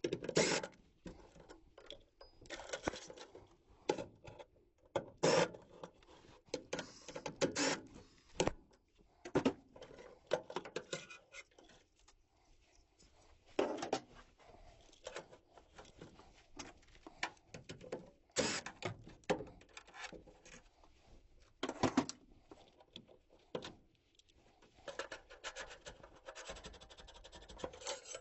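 Irregular clicks, scrapes and rubbing from hand work on a gas furnace, as tools and sheet-metal parts are handled.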